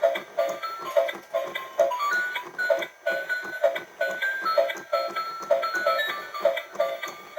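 Electronic frog toy playing a jingle: a plinking melody over a short, buzzy croak-like pulse repeated about twice a second.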